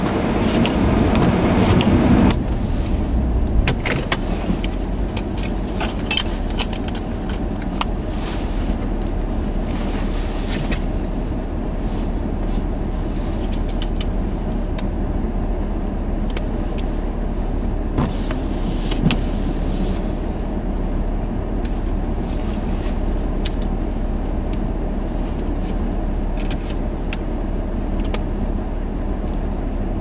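Blizzard wind buffeting the microphone: a steady rushing noise, louder for the first two seconds or so, with scattered sharp ticks.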